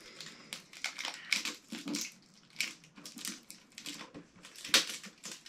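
A cardboard toy box with plastic film still on it being handled and picked open by hand: a run of short, irregular crinkles, scrapes and taps, with one sharp, louder crackle near the end.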